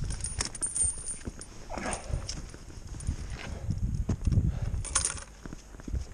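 Footsteps scrambling over rock: irregular knocks, scuffs and light metallic clinks over an uneven low rumble.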